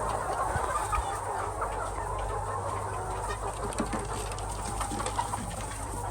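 A large flock of egg-laying hens clucking and chattering without pause, many birds calling over one another, with a steady low hum underneath.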